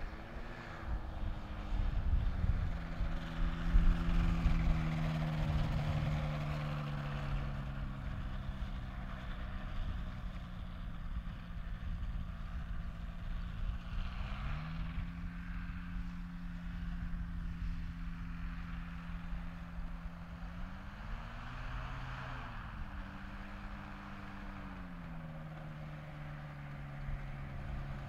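Microlight trike's engine and pusher propeller running as it rolls across grass. The engine note sinks at first, steps up about halfway through, swells up and back down about three-quarters in, and rises again at the end. A low rumble is loudest in the first few seconds.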